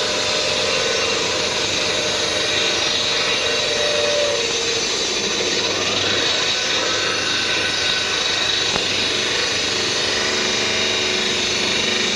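A homemade bandsaw mill running steadily, a loud, even mechanical noise with a few steady tones over it.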